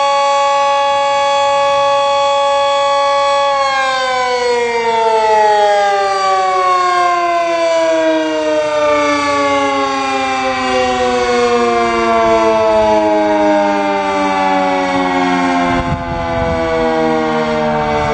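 Red Arrow Model 30 siren sounding a steady tone. About three and a half seconds in, the pitch starts falling slowly and keeps falling as the siren winds down.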